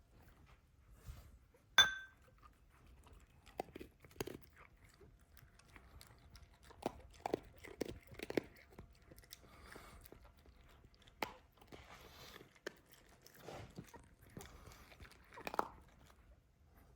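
A dog chewing and eating in short, irregular crunchy bites, with one sharp ringing clink about two seconds in.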